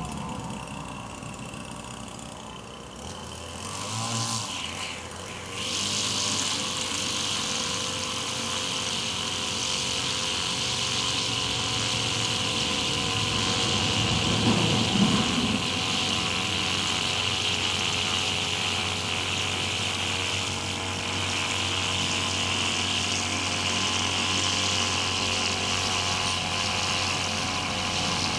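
Gas string trimmer's small engine coming up to speed about four seconds in, then running steadily at high revs with a high-pitched whine, over a steady low hum.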